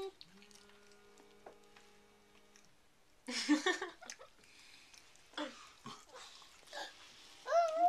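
A toddler's short, muffled vocal sound about three seconds in, a few small mouth sounds while she chews, and near the end a child's voice rising in pitch.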